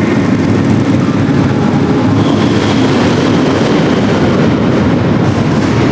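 Several Harley-Davidson police motorcycles running together in formation: a loud, steady engine rumble with a rapid pulse.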